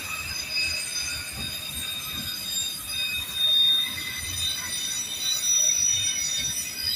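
Freight train rolling past, its steel wheels squealing against the rails in several steady high-pitched tones over a low rumble.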